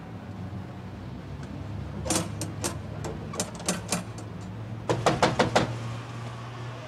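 A scattered series of sharp taps, then a quick run of about five knocks on a front door, over a low steady hum.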